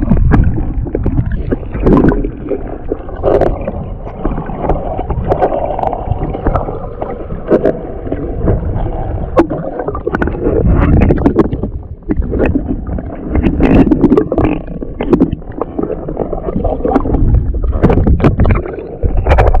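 Muffled water sloshing and gurgling heard with the camera held underwater, broken by scattered sharp clicks and knocks.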